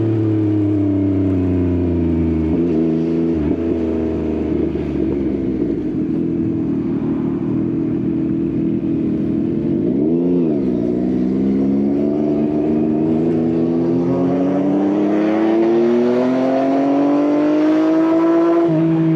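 A Yamaha XSR900's three-cylinder engine through an Akrapovič exhaust, heard on the move. The engine note eases down for the first few seconds and dips sharply about ten seconds in. It then climbs in one long pull and drops near the end, as with a gear change.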